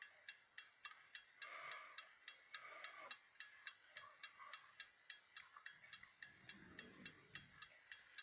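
Movement of a 1960 Swiss Neuchatel mantel clock ticking steadily and faintly, about three ticks a second.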